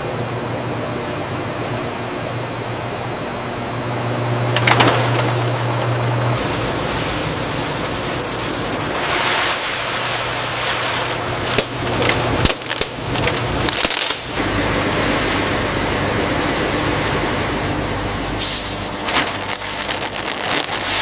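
Factory production-line machinery running: a steady noisy hum whose character changes abruptly about six seconds in and again around twelve to fourteen seconds in, with a few short clicks.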